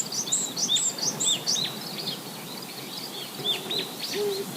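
Small birds chirping in a quick run of short, high, downward-slurred notes, thinning out after the first second or so, with a low cooing note twice near the end.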